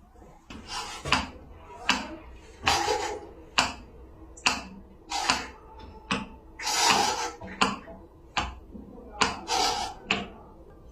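Sharp snapping clicks, roughly one a second and unevenly spaced, from an electrical fault locator pulsing a live-to-earth leakage fault in house wiring, the sound used to track down where the fault lies.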